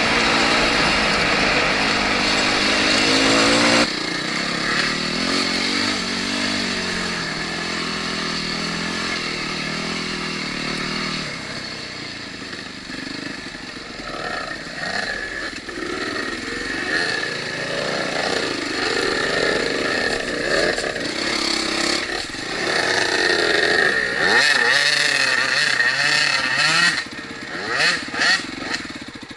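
Dirt bike engine under way, the throttle opening and closing so the pitch rises and falls repeatedly. The sound changes abruptly about four seconds in, and near the end come a few short blips of throttle.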